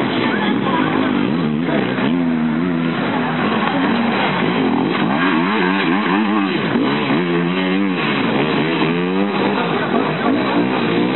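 Enduro motorcycle engines revving, the pitch rising and falling over and over as riders accelerate and shift, with several bikes heard at once.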